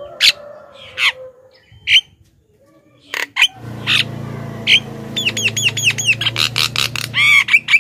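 Javan myna (jalak kebo) calling: a few sharp, separate squawks, then from about halfway a fast chattering run of arched whistled notes, about five a second. A low steady hum lies underneath from about halfway.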